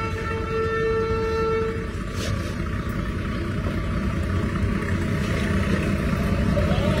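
A train horn held on one steady chord, cutting off about two seconds in. Under it is the low rumble of trains on the line, growing louder towards the end as another train approaches on the next track.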